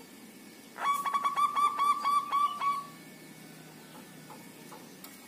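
Zebra dove (perkutut) singing one phrase about a second in: a quick rhythmic run of about ten clear cooing notes ending in a longer held note, lasting about two seconds.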